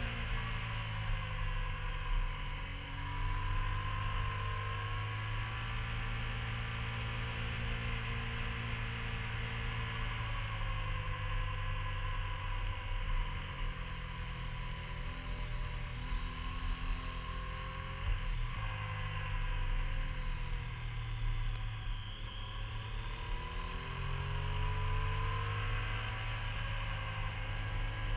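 Onboard sound of a motorcycle being ridden through a run of curves: the engine's pitch rises and falls again and again with the throttle, over a steady low drone and rushing wind and road noise.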